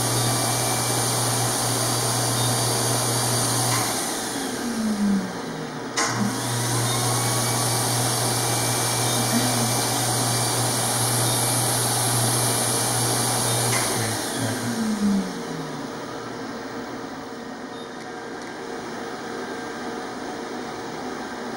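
A vacuum-type electric motor runs steadily in two spells. It winds down with a falling whine about four seconds in, starts again with a click about two seconds later, and winds down again around fourteen seconds, leaving a softer steady hiss.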